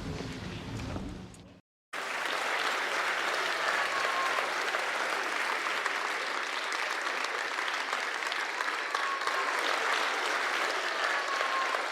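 Music fades out, and after a brief gap audience applause starts about two seconds in and carries on steadily.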